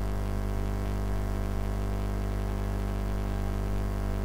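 Steady electrical hum with many overtones, unchanging throughout: a drone picked up by the recording setup under a pause in the narration.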